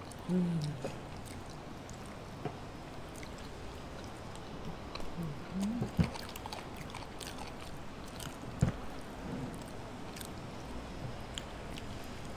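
Close-miked eating: chewing and fingers tearing fried chicken, with scattered small clicks and two sharper knocks, about six and eight and a half seconds in. A couple of short low hums come near the start and just before the first knock.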